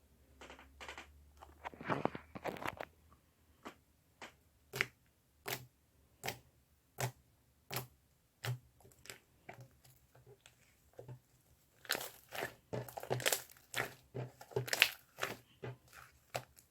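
A series of short, sharp crunches, roughly one every three quarters of a second, then a quicker, louder cluster of crunching and crinkling about twelve seconds in.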